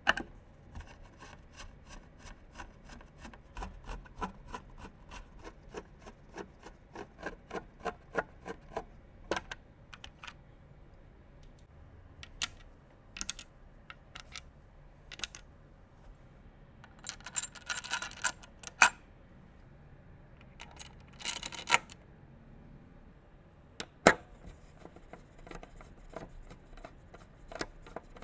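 Clicks, taps and light rustling of computer parts and hardware being handled during assembly. There is a quick run of small clicks over the first ten seconds, scattered ticks after that, two brief rustling clusters, and one sharp click near the end.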